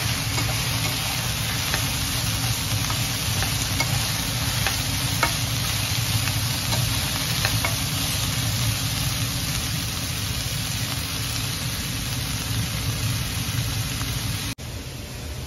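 Chicken, onions and bell peppers with tomato puree sizzling in a frying pan while being stirred, with faint scattered clicks of the spoon against the pan. The sizzle drops off sharply about a second before the end.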